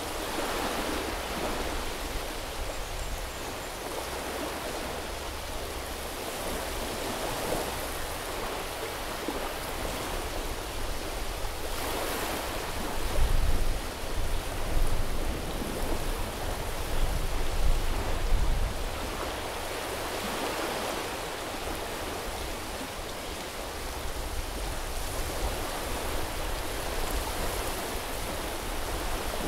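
Small sea waves washing onto a beach, a continuous rushing hiss that swells and eases every several seconds. Several louder low rumbles come near the middle.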